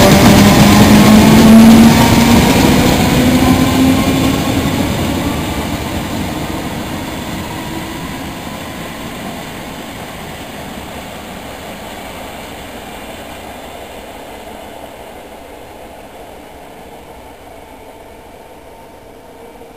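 Electric multiple unit accelerating away along the platform. Its motor whine rises slowly in pitch over the first few seconds as the train noise fades away steadily to a faint background.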